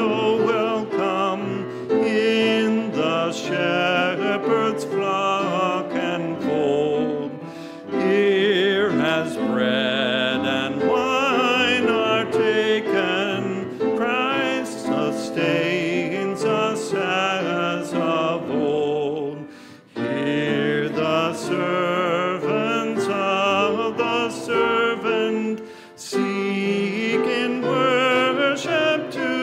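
Congregation singing a hymn with piano accompaniment, in sung lines with short breaks between them.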